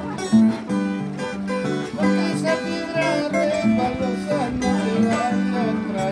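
An Andean harp being played: a plucked melody over low bass notes.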